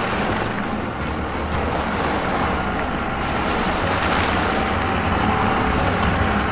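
Cartoon sound effect of a snowplow truck clearing a snowy road: a steady rushing whoosh of scraped and thrown snow over a low engine rumble.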